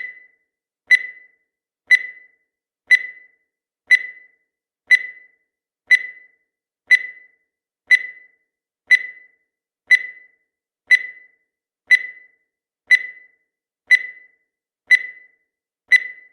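Countdown timer sound effect: a short, high beep that dies away quickly, repeating steadily once every second.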